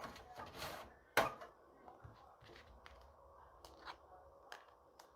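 Hard drives being fitted into a computer case's drive bays: a brief sliding scrape, then one sharp click a little over a second in, and a few lighter clicks and taps later.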